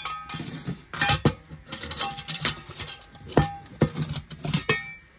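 Stainless steel pot, lid and windshield of a Pathfinder M40 cook kit knocking and clinking together as the pieces are handled and fitted: a string of sharp metal knocks, several with a brief ring.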